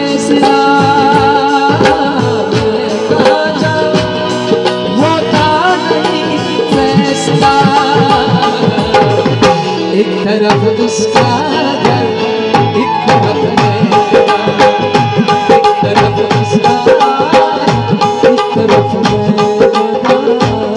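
Tabla and harmonium playing an instrumental passage between sung lines: harmonium chords held steady under a busy tabla rhythm, which settles into a steadier, denser pattern about halfway through.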